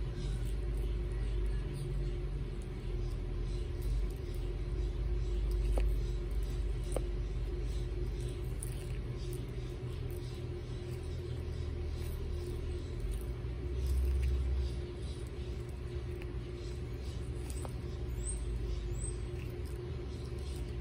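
Baby Aldabra tortoises biting and chewing lettuce leaves, faint crisp crunches over a steady low rumble.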